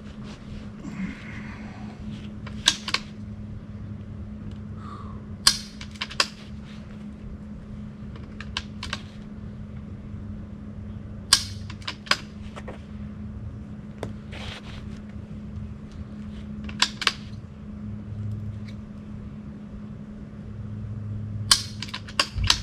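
.22 rimfire rifle firing in a timed prone stage: about eight sharp reports come every two to four seconds, several followed a fraction of a second later by a second sharp crack.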